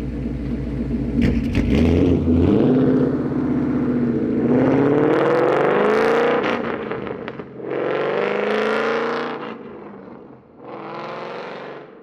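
Loud exhaust of a 2012 Ford Mustang GT's Coyote V8, fitted with Borla long-tube headers, an off-road X-pipe, a Borla ATAK axle-back and no resonator. It idles, then pulls away and accelerates, rising in pitch in three pulls with short dips between them. It fades as the car drives off.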